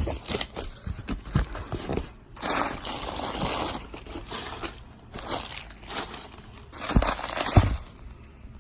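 Packaging being handled as a parcel is unpacked: crinkling and rustling of wrapping and cardboard with irregular knocks, and two heavier thumps near the end.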